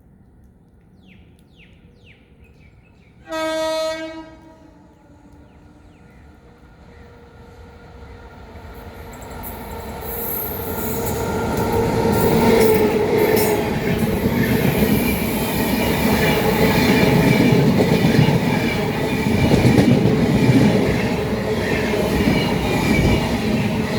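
A WAP7 electric locomotive sounds one short horn blast. The train then approaches, its rumble growing into a loud, steady clatter of wheels and coaches running past on the track.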